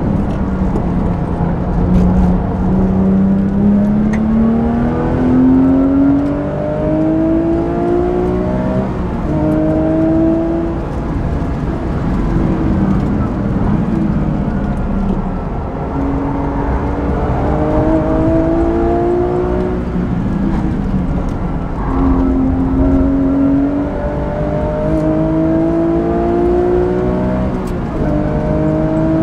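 Porsche 997.2 GT3 RS's naturally aspirated flat-six with a Manthey racing exhaust, heard from inside the cabin, revving up under hard acceleration. The pitch rises and then drops several times as the manual gearbox is shifted up, with a rougher, unsteady stretch around the middle, over steady road and wind noise.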